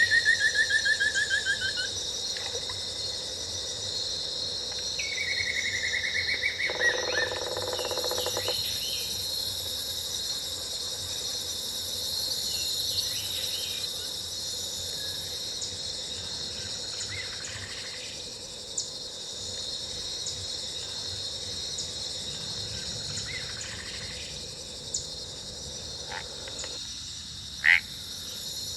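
Jungle sound-effect loop from theme-park speakers: a steady chorus of insects trilling, with odd animal calls over it. A fast pulsed call falls in pitch at the start, another comes about five seconds in, followed by a low buzzy call, and short sharp chirps come later, the loudest near the end.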